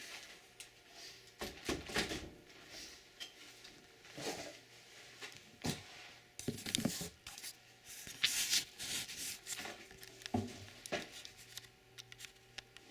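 Intermittent handling noise from an opened desktop computer case: scattered light clicks, knocks and rubbing of hard parts being moved about.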